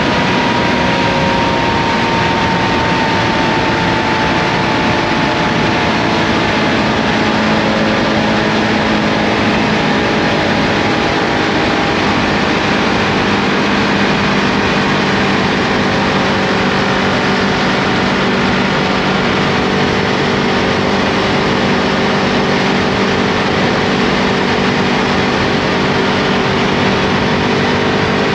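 Ducati Multistrada V2S's 937 cc Testastretta V-twin running at cruising speed under a steady rush of wind and road noise. Its engine note sinks slowly over the first dozen seconds as the bike eases off, then holds steady.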